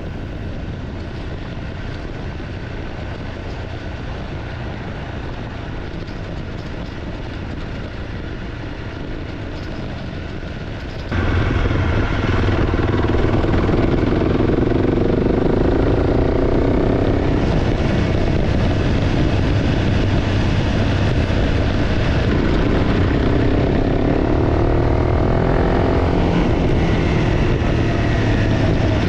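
Single-cylinder engine of a Honda CRF300 Rally adventure motorcycle fitted with an aftermarket exhaust, running as the bike is ridden. About eleven seconds in it suddenly gets much louder, and its pitch rises and falls with the throttle.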